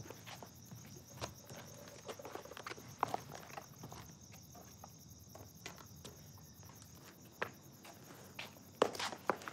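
Crickets chirping in a steady high pulsing trill, with scattered footsteps and a few louder knocks near the end.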